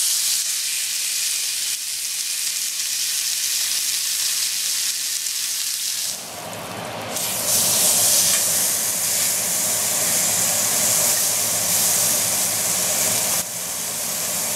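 Ribeye steak searing in a very hot cast iron skillet: a loud, steady sizzle starts as the steak goes into the pan. About six seconds in, the sizzle dips briefly and then comes back fuller as the steak is turned with tongs.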